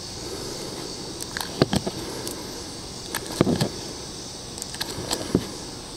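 Scattered light clicks of .22 LR cartridges being handled and pressed into a Ruger 10/22 magazine, a few at a time, over a faint steady hiss.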